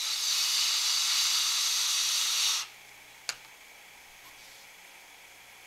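A person blowing a long breath onto a CO2 sensor: a steady hiss of about two and a half seconds that stops abruptly. A single sharp click follows a little later.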